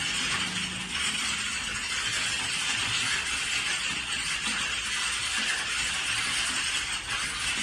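Many computer keyboards being typed on at once, merging into a steady, dense clatter of keystrokes without pauses.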